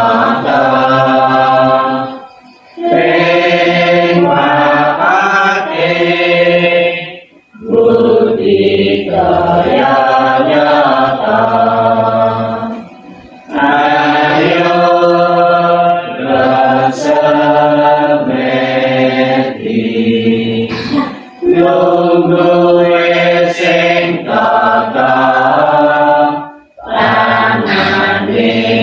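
A group of men and women singing a Buddhist devotional song together, line by line, with brief breaks between phrases every few seconds.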